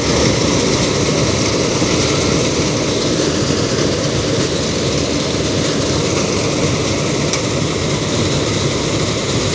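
Combine harvester running fully engaged while it cuts the crop: a loud, steady drone of its engine and threshing machinery, unchanging throughout.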